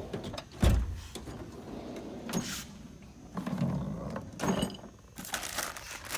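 Metal tool chest drawers sliding on their runners, one shutting with a heavy thump less than a second in, followed by rattling and clinking of the tools inside as the next drawer is pulled open.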